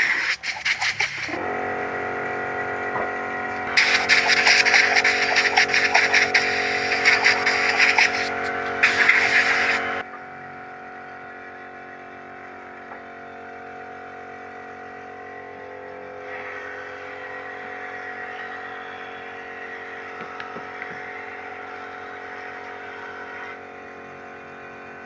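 Air compressor motor running steadily. Over it, a paint spray gun being flushed out with water blasts in loud hissing bursts, two long ones in the first ten seconds; after that only the compressor is heard.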